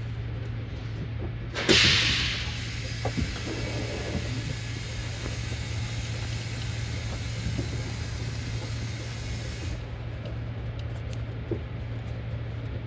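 Bus engine idling with a steady low hum. About a second and a half in, the bus's compressed-air system lets out a sharp hiss, which eases into a steady hiss that stops suddenly about ten seconds in.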